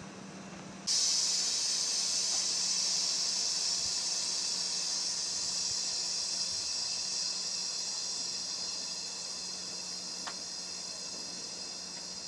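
A stationary 7200 series electric train hisses loudly as compressed air vents from its pneumatic system, starting suddenly about a second in and slowly fading, over a steady low hum.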